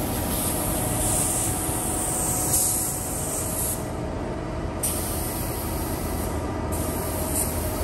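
Steady workshop noise: a low rumble with a high hiss that comes and goes every second or two.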